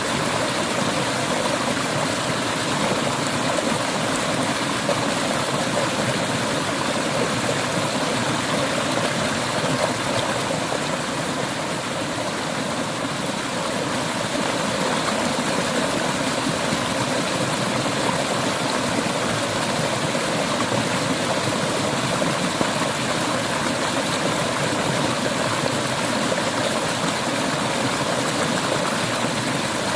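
Clear river water flowing, an even, unbroken sound of running water that holds steady throughout.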